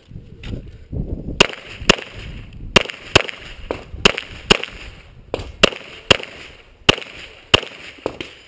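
Semi-automatic pistol fired in a rapid string of about fourteen shots, roughly two a second, starting about a second and a half in.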